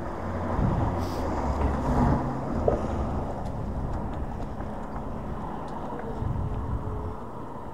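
Steady low rumble of wind on the microphone and road noise from a Hiboy S2 Pro electric scooter riding on solid tires.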